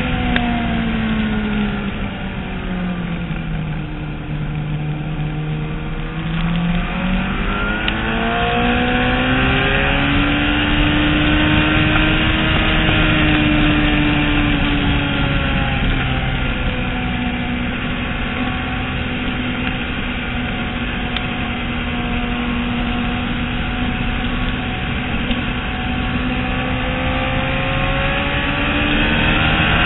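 Motorcycle engine running hard on a racetrack. The revs fall about two to five seconds in, climb again, hold fairly steady with a slow sag, and rise once more near the end, over a steady rush of noise.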